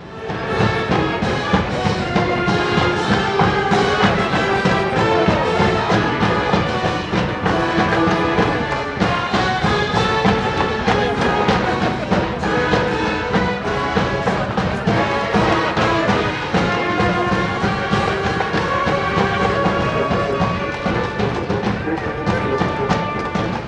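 A high school brass band playing a cheering song from the stands, brass leading over drums. It starts abruptly.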